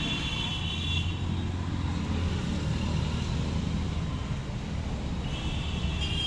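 Steady road traffic noise: a low rumble of passing cars.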